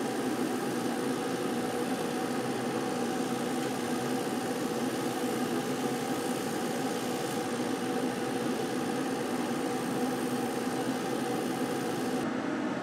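Genmitsu diode laser cutter running a cut through 3 mm plywood, giving a steady machine hum with a few even tones.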